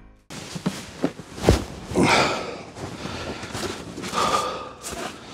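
Close handling and rustling noise with a few sharp knocks in the first second and a half, and footsteps on a snow-covered floor.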